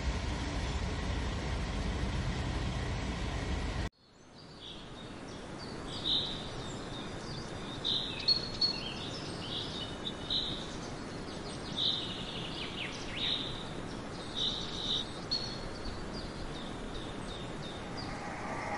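A steady low train rumble cuts off suddenly about four seconds in. A background of ambient outdoor noise then fades in, with birds chirping in short high calls every second or two.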